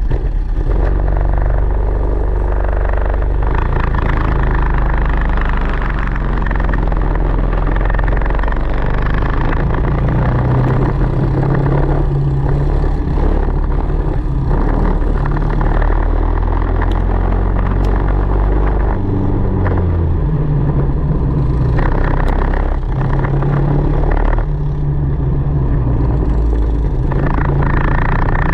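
Onboard sound of a Tillotson 225 single-cylinder four-stroke kart engine racing at full throttle, its revs climbing and dropping again and again through the corners, with other karts' four-stroke engines running close by.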